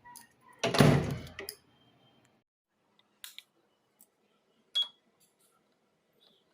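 A loud dull thump with a short clatter about a second in, then two sharp clicks a second and a half apart, the second with a brief clink: kitchen handling noises.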